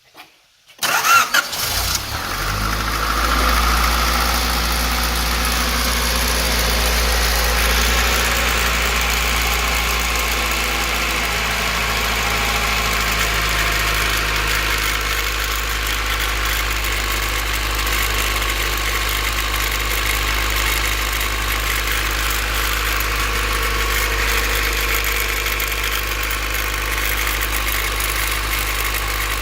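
Honda B16 four-cylinder engine cold-started: a brief crank, it catches about a second in, then runs at a steady idle with a rattle. The owner traces the rattle to the distributor; a replacement distributor, checked lost motion assemblies and a valve lash adjustment have not cured it.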